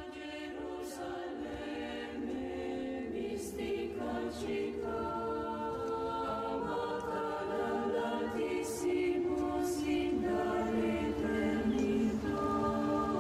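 Background music: a choir singing, growing louder over the first couple of seconds and then holding long, sustained notes.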